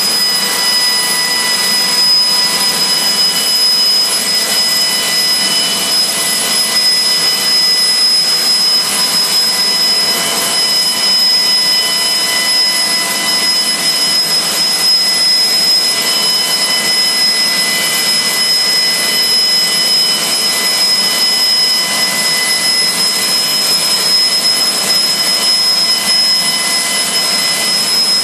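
AiResearch Garrett GTP70-9 turboshaft engine running at a steady speed: a high turbine whine with several level tones over a loud rushing hiss, with no change in pitch.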